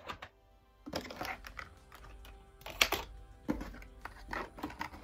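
Plastic makeup products and trays clicking and knocking as they are picked up and set down in a drawer, a handful of light taps with the sharpest about three seconds in, over soft background music.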